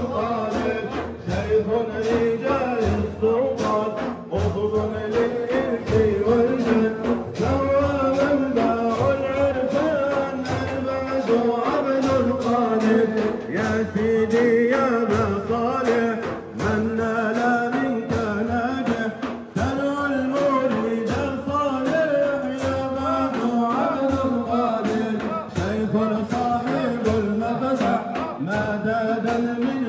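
Male voices chanting dhikr over a steady percussive beat of several strokes a second.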